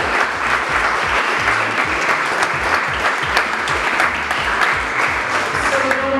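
A small crowd applauding, many hands clapping steadily.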